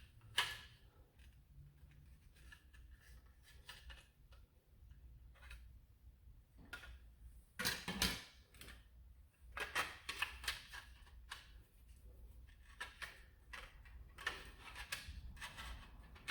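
Irregular light clicks and knocks of blaster-kit parts being handled and test-fitted together, with a few louder knocks about eight and ten seconds in.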